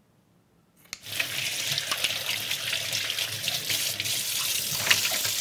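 Kitchen tap turned on about a second in, running steadily into a stainless steel sink as plastic-gloved hands rinse under the stream.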